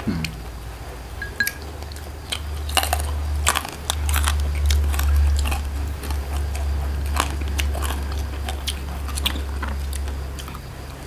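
Close-up chewing and biting of crisp food, with scattered sharp crunches, over a steady low rumble.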